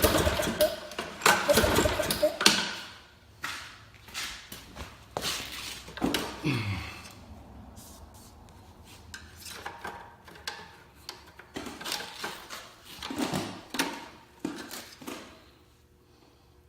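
Briggs & Stratton lawn mower engine turned over a few times by its recoil pull-starter without starting, to wash the old oil around inside. This is followed by scattered knocks and clatter.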